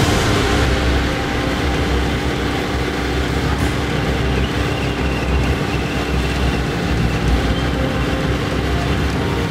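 A John Deere tractor's engine running steadily under load as it pulls a round baler picking up straw, a constant low mechanical rumble.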